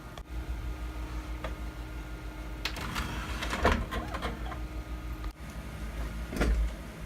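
Retro desktop PC running, its fans giving a steady hum, with clicks and short motor whirs from the optical drive as its tray is worked and the install disc is loaded. The hum dips briefly about five seconds in.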